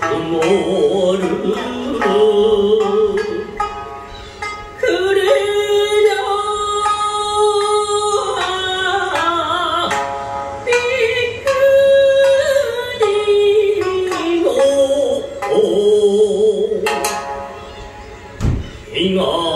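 A Japanese song sung over instrumental backing, the singer holding long notes with a wavering vibrato. The music dips briefly near the end before the next phrase.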